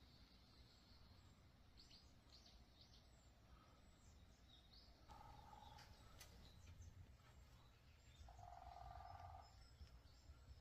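Faint wild birds chirping, with a few short high chirps and two longer held calls about five and eight seconds in, over a low steady background hum.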